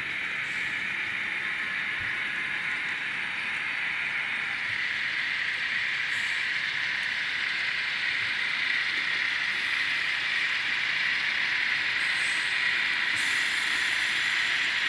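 Kato N scale container train running along its track: a steady high hiss from the small locomotive and its wheels, growing slowly louder as it comes closer.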